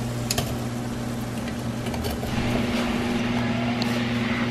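A steady low mechanical hum, with a faint click about a third of a second in and another near the end.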